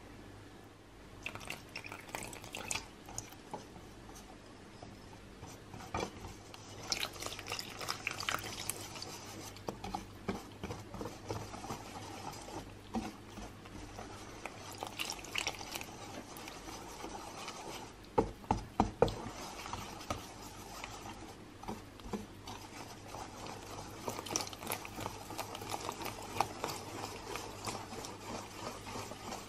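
Wire whisk beating eggs, flour and melted butter into crêpe batter in a stainless steel bowl: wet stirring with the wires scraping and clicking against the metal. A few louder sharp knocks come about two-thirds of the way through, and the strokes turn quicker and more regular near the end.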